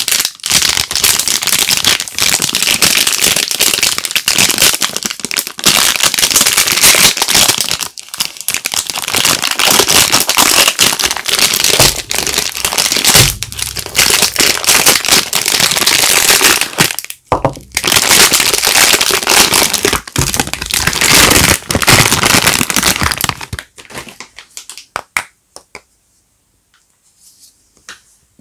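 Soap bar wrappers being torn open and crumpled by hand, a dense, loud crinkling and crackling that thins out to a few scattered clicks near the end.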